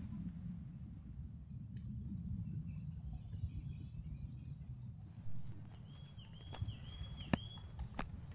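Outdoor ambience: a steady high insect drone over a low rumble of wind and handling on the microphone. About six seconds in, a bird gives a quick run of four or five repeated chirps, and near the end come a couple of sharp knocks as wooden sticks are set against the charred coconut on the fire.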